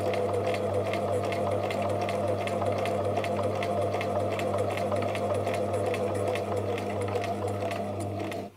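Bernina 1008 sewing machine, freshly oiled, running steadily forward on a long straight basting stitch through heavyweight cotton. A motor hum runs under a quick, even clatter of needle strokes, and it stops abruptly at the end.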